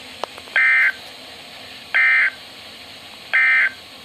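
Emergency Alert System end-of-message signal: three short bursts of warbling SAME digital data, about a second and a half apart, over a steady hiss. The bursts mark the end of the alert message.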